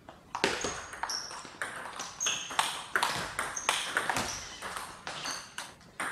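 Table tennis rally: the celluloid ball clicking sharply off bats and table in quick succession, several hits a second, each with a brief high ring.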